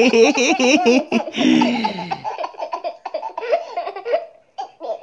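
Baby laughing in a string of short bursts. A lower adult voice sounds alongside for the first two seconds.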